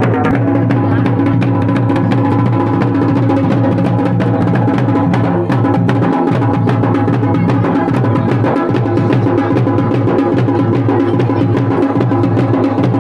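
Folk drumming: fast, continuous drum beats over a steady droning tone, music for ritual dancing.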